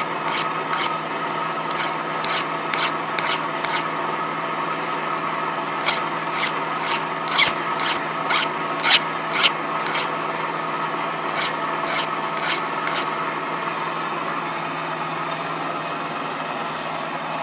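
Milling machine's end mill cutting a steel block with the spindle running steadily, taking a pass down one side of the block. Irregular sharp ticks of chips flying off the cutter come and go, thinning out near the end.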